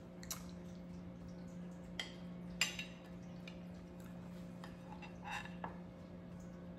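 Person chewing a mouthful of food, with a few small sharp clicks and a steady low hum in the room.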